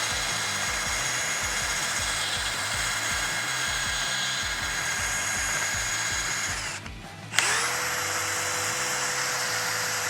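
DeWalt DCD1007 18V brushless hammer drill in first gear, driving a 14mm spade bit into wood with a steady whine. It stops about seven seconds in, then starts again with a quick rising whine and runs on steadily.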